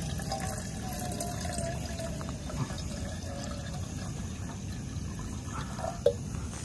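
Water pouring from a bottle into a stainless steel billy pot, a steady splashing fill with a thin wavering tone. A single short sharp knock about six seconds in.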